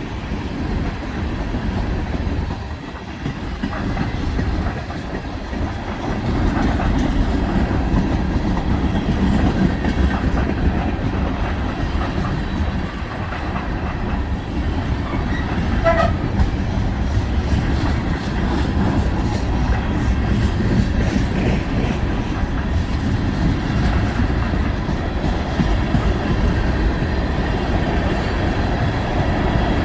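Freight cars of a long mixed freight train rolling past at steady speed: a continuous rumble with the clickety-clack of steel wheels over rail joints.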